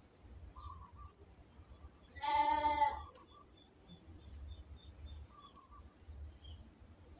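A goat bleats once, about two seconds in, a single call lasting nearly a second, with faint high bird chirps in the background.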